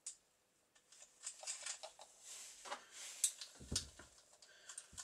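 Small metallic clicks and rattles as a chainsaw's clutch cover, bar and chain are handled into place and the bar nuts are threaded on by hand, with a dull knock about three and a half seconds in.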